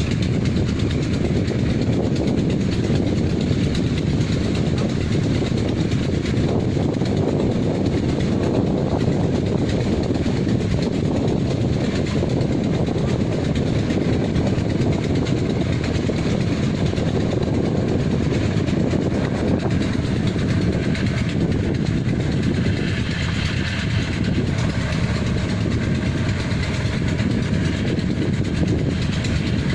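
Diesel engine and machinery of a Kubota rice-harvesting machine running steadily: a loud, continuous mechanical din with no pauses.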